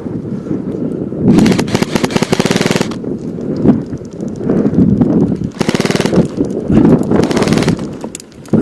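Airsoft gun firing rapid automatic bursts: a long burst of about a second and a half, then two shorter ones near the end.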